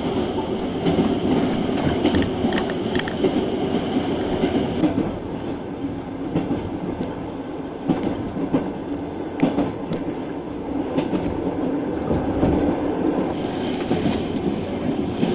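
Moving passenger train heard from inside a carriage: a steady rumble with irregular clicks and knocks from the wheels on the rails. Near the end a higher hiss joins in.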